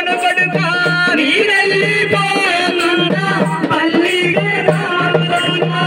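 A funeral lament sung through a microphone and loudspeaker over amplified melodic accompaniment, with a low steady note that comes and goes in a regular pattern.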